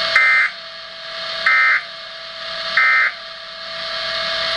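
Three short warbling data bursts from a weather radio broadcast, each about a third of a second long and about 1.3 s apart. They are the SAME digital end-of-message tones that close an alert bulletin. Steady radio hiss and a thin steady tone run underneath.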